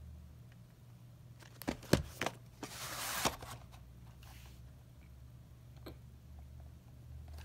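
VHS cassette handled and slid out of its cardboard slipcase: a few sharp plastic clicks about two seconds in, then a brief papery scrape ending in another click, with fainter rustles later, over a steady low hum.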